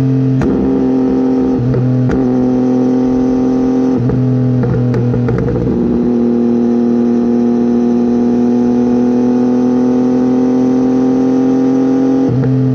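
Triumph Tiger 800XC's three-cylinder engine running through a slip-on exhaust with the catalytic converter removed, giving a loud, raw exhaust note. It holds a steady engine speed, with a few brief shifts in pitch and some short clicks in the first half.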